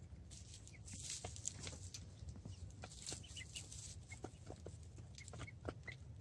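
Buff Brahma hens giving soft, short clucks, among scattered ticks and rustles in the straw, over a low rumble.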